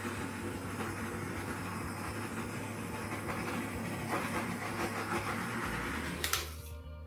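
Torch flame hissing steadily as it is passed over a wet acrylic pour to bring up cells, then shut off with a click about six seconds in.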